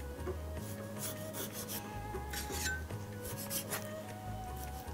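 Cleaver blade slicing through a slab of meat fat on a wooden chopping block: a string of short, soft scraping strokes, about two a second. Soft background music runs underneath.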